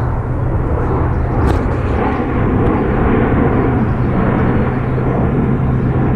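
Formation of military jets passing low overhead: a loud, steady jet roar.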